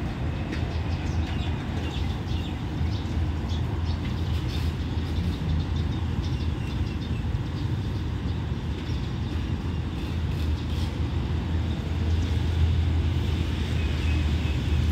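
Diesel locomotive at the head of a passenger train running with a steady low rumble, a little louder near the end.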